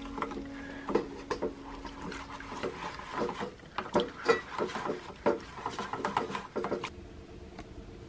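A stainless-steel pan of soapy water being scrubbed by hand: irregular swishing and scraping strokes against the metal, stopping about seven seconds in. Music fades out over the first two seconds.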